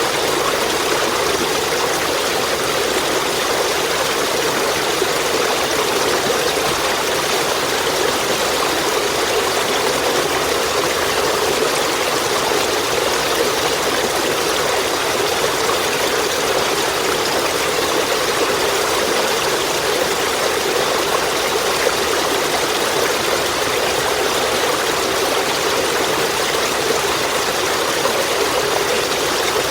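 Running water stream flowing steadily, a continuous even rush of rippling water.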